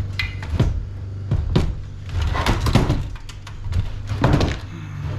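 Cutters snipping wires inside a computer case, with parts knocking against the metal chassis: a string of irregular sharp clicks and knocks over a steady low hum.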